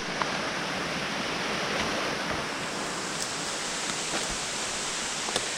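Steady rush of falling or fast-flowing water, an even hiss with a few faint ticks over it.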